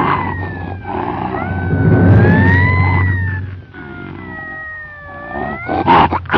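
Early-1930s cartoon soundtrack: long sliding, wailing tones that rise and fall over a low sustained note, a monster's howl in the score. The wail falls away about three and a half seconds in, and a few sharp hits land near the end.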